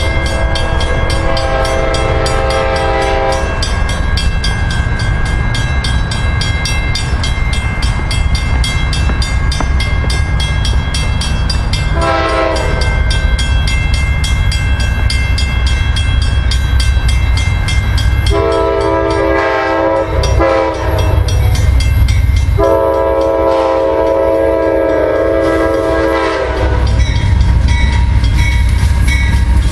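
Amtrak P42DC diesel locomotives approaching, their air horn sounding a chord in several blasts: a long one at the start, a short one, then a run of long blasts. Underneath runs the steady rumble of the diesel engines and the train rolling on the rails, which grows louder near the end as the locomotive draws close.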